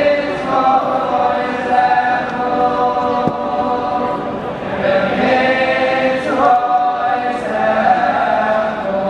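A large group of men singing together in unison, a Hasidic melody with long held notes that shift in pitch and run on without a break.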